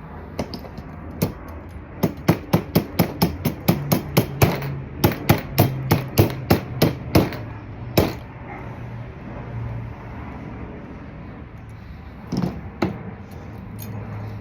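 Hammer blows during scooter engine work: a run of about twenty quick strikes at roughly four a second, then a single blow and, near the end, two more.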